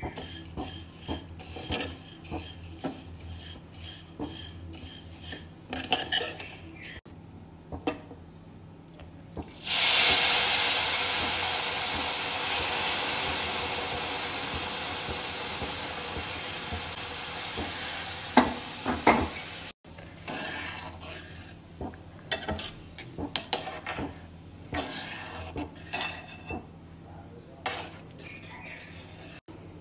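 Spatula scraping and clicking against a metal pan while stirring roasted vermicelli and crushed dry fruits. About ten seconds in, milk poured into the hot pan sets off a loud hiss and sizzle that slowly fades over about ten seconds, then the scraping strokes of stirring resume.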